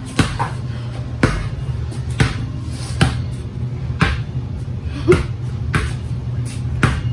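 Basketball being dribbled on a hard floor, bouncing about once a second at an uneven pace, with background music.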